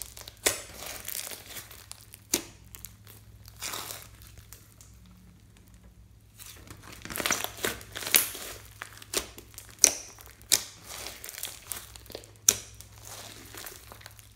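Hands squeezing and kneading glittery slime mixed with small beads: wet squishing and crackling, broken by sharp clicks and pops every second or so. A quieter spell comes just before the middle, and the clicks come thickest in the second half.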